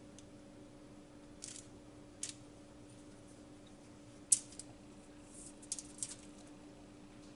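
A fork and hands handling dough on aluminium foil: scattered light clicks and crinkles, with one sharp tap a little past halfway and a quick cluster of clicks shortly after. A faint steady hum runs underneath.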